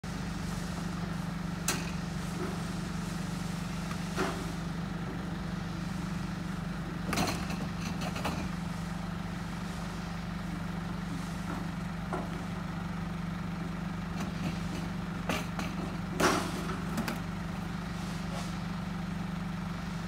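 Forklift engine idling steadily under a raised work platform, with a handful of short, sharp knocks scattered through, the loudest a little past three-quarters of the way in.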